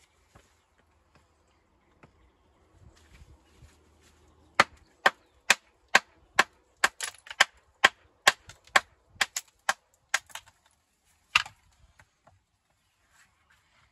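A walling hammer striking stone: a quick run of sharp knocks, about three a second for some six seconds, then one more strike a second later, typical of dressing or trimming a stone to fit the wall.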